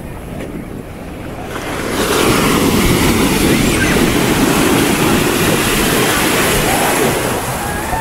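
Ocean surf breaking and washing through shallow water, swelling into a loud, steady rush about two seconds in. Wind buffets the microphone underneath.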